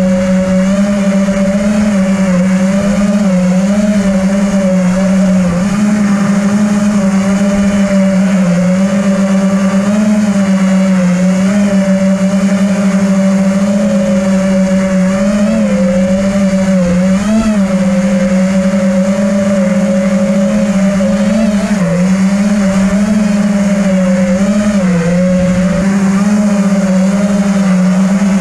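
FPV freestyle quadcopter's motors and propellers whining at a steady pitch, with short dips and wobbles as the throttle changes.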